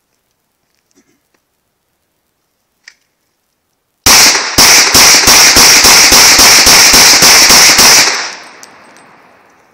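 Glock pistol in .357 SIG fired rapid-fire: a fast string of about fifteen shots at about four a second, so loud they overload the recording. The echo dies away over a second or so after the last shot.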